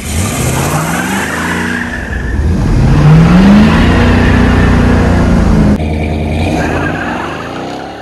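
1968 Ford LTD's 390 V8 at full throttle from a standing start, rising in pitch, dropping as the automatic upshifts about two seconds in, then climbing again. Tyres squeal under the launch.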